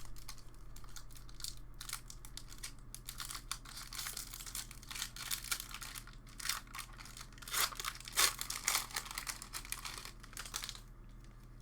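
A Magic: The Gathering booster pack's foil wrapper being torn open and crinkled by hand, an irregular papery crackling that thickens in the middle and dies away near the end.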